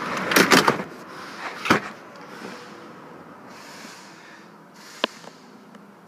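Handling noise inside an SUV's cabin: a burst of rustling and knocks at the start, a sharp knock about a second and a half later, then a single sharp click around five seconds in.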